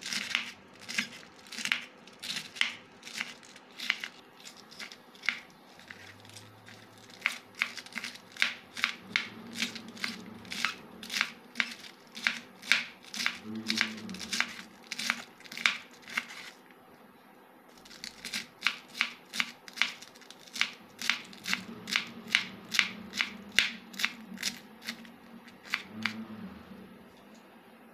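Kitchen knife shredding a cabbage head on a wooden cutting board: crisp slicing strokes about two a second, each blade stroke cutting through the leaves and tapping the board. The strokes pause briefly about two-thirds through, then resume and stop shortly before the end.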